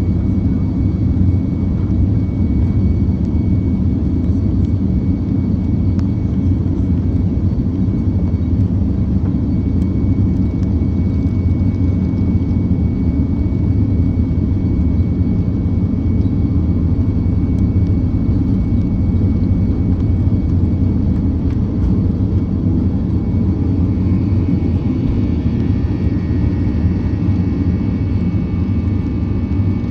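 Steady loud rumble of a Boeing 767-400's jet engines and rushing air, heard inside the cabin, with a thin high whine throughout. Further whining tones come in near the end.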